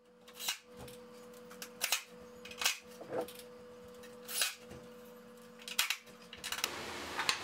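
Sharp wooden knocks and tool clicks, about seven of them at uneven intervals, as a plywood sled fence and a cordless drill are handled while the fence is being screwed down, over a steady low hum; a hiss of noise comes in near the end.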